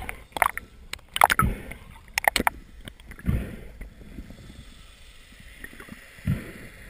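Muffled underwater sounds picked up through a camera housing while a diver swims to the surface with a speared fish. A quick run of sharp clicks and knocks comes in the first two and a half seconds, then low dull thumps about three and six seconds in over a low water rumble.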